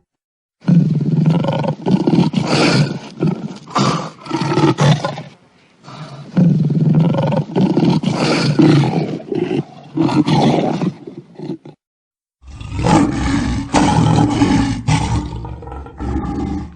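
Lion roaring and growling in three long, rough bouts of several seconds each, with short silent gaps between them: edited sound-effect clips.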